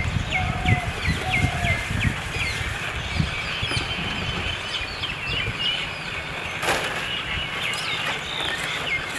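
Birds calling, a run of short falling chirps repeated throughout, with a lower steady piping note repeated about four times in the first two seconds. An uneven low rumble lies underneath, and a brief noise cuts in about seven seconds in.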